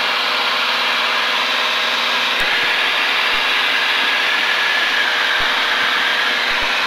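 Steady cabin drone of a single-engine light airplane's piston engine and propeller in level cruise, heard from inside the cockpit.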